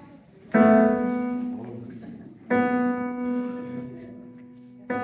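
Digital stage piano playing sustained chords: two chords struck about two seconds apart, each left to ring and slowly fade, with a third struck at the very end.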